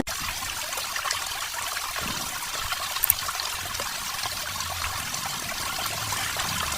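Steady trickle of water pouring from the outlet of a small submersible water pump.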